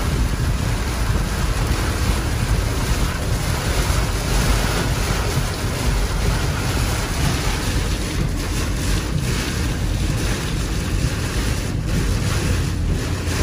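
Thunderstorm wind and heavy rain beating on a car, heard from inside: a loud, steady rush with strong low buffeting of wind on the microphone.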